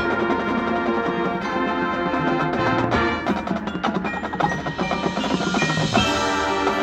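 High school marching band playing its competition show, with struck, bell-like mallet percussion standing out over the winds.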